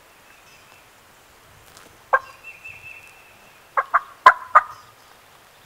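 Wild turkey gobbler gobbling close by: a short rattle about two seconds in, then a louder, longer gobble around four seconds in.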